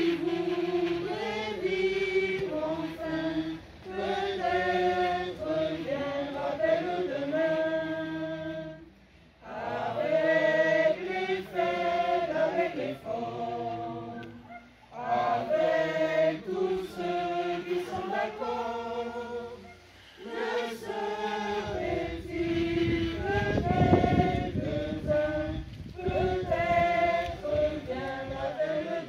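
Mixed amateur choir singing a song unaccompanied, in phrases with short breaks between them. A low rumbling noise runs under the voices for a few seconds about two-thirds of the way through.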